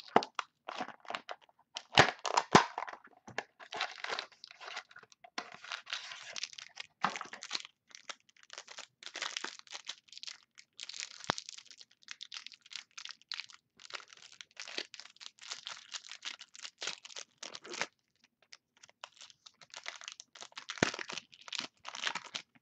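Plastic wrapping crinkling and tearing as a trading-card box's shrink-wrap is cut off and a card pack is ripped open, in quick irregular bursts with two sharp snaps about two seconds in.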